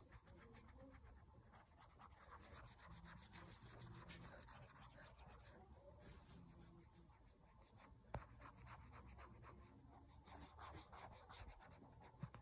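Faint scratchy rubbing of drawing strokes being coloured in, with a sharper click about eight seconds in and another near the end.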